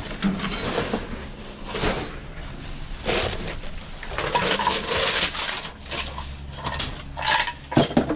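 Rummaging through discarded items in a metal dumpster: plastic bags and cardboard rustling and crinkling in irregular bursts, with knocks and short clinks as objects are shifted, the sharpest clatter near the end.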